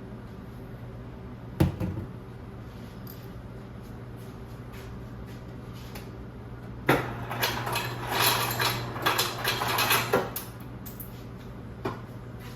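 Kitchen handling sounds: a single sharp knock like a cupboard door closing about a second and a half in, then a few seconds of kitchenware clattering, over a steady low hum.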